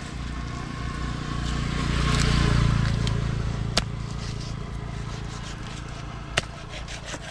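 A motor vehicle passing, its rumble swelling to a peak about two and a half seconds in and then fading. Two sharp knocks, about two and a half seconds apart, in the second half.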